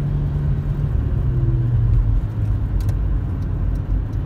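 Road noise inside a moving car's cabin: steady engine hum and tyre rumble. The engine note steps down in pitch about a second in and again about two seconds in.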